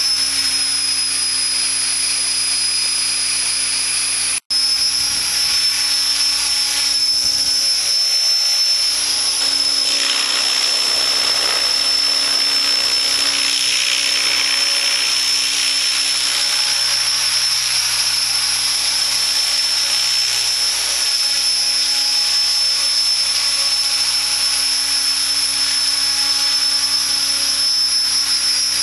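Align T-Rex 600ESP electric radio-controlled helicopter running, a steady high-pitched motor and gear whine over the rush of the spinning rotor blades, the blade rush swelling for a few seconds midway. The sound cuts out for an instant about four and a half seconds in.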